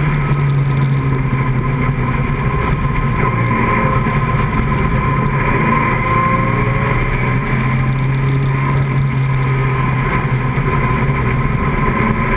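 Open-cockpit vintage race car's engine running at speed on track, heard from on board, its pitch holding fairly steady and shifting a few times.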